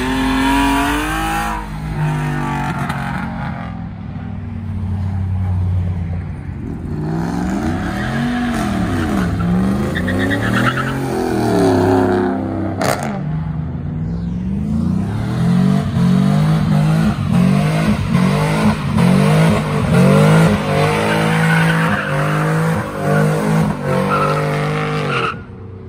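Pickup truck engines revving hard through several full-throttle pulls, their pitch climbing and falling again and again, with tyres squealing at times. One sharp crack rings out about halfway through.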